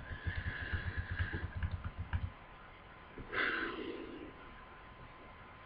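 A man breathing close to a webcam microphone in a pause between sentences. There is a low rumble in the first two seconds and one short exhale through the nose about three seconds in, over a faint steady tone.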